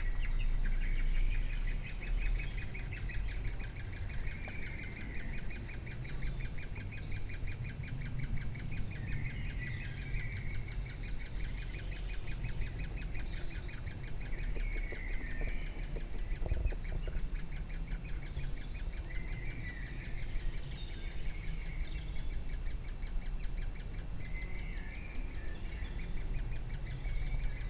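Woodpecker nestlings begging in the nest: a rapid, unbroken chorus of high chirps, with louder calls rising over it every few seconds.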